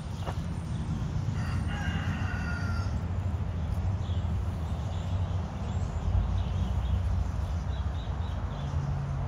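A rooster crowing once, starting about a second and a half in and lasting about a second and a half, over a steady low rumble.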